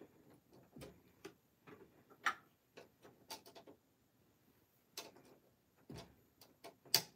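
Scattered light clicks and taps of a sewing machine's bobbin case being fitted and pressed into its bobbin housing, the sharpest about two seconds in and just before the end.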